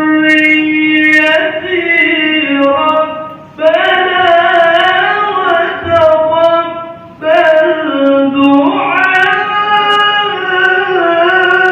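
A solo voice reciting the Qur'an in the melodic qiro'ah style, holding long ornamented notes that wind up and down in pitch, with two short breaks about three and a half and seven seconds in.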